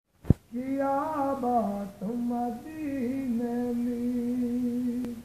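A man singing a Punjabi naat unaccompanied: an ornamented, wavering melodic line that settles into one long held note about three seconds in and breaks off near the end. A sharp click at the very start.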